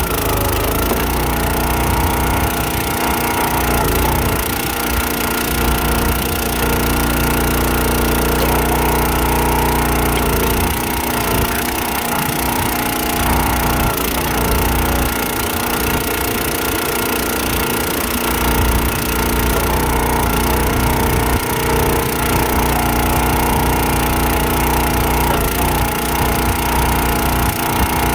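Countyline 25-ton gas log splitter's small engine running steadily while the hydraulic ram drives logs onto the wedge, with the wood cracking as it splits.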